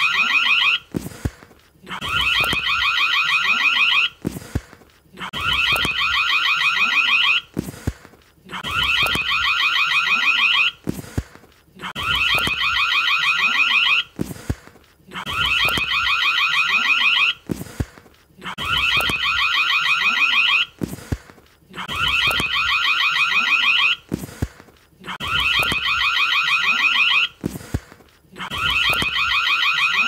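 Indoor doorbell ringing in rapid trilling bursts of about two seconds each, with a pause of about a second between them, repeating over and over.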